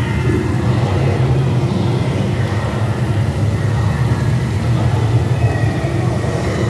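Steady low rumble of a dark-ride vehicle moving along its course through the attraction.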